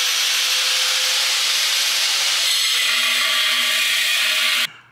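Handheld grinder running steadily while cutting metal, with a steady high whine over the grinding noise, then shutting off abruptly near the end.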